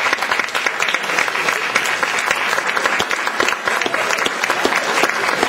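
Audience and cast applauding in a theatre: steady, dense clapping from many hands.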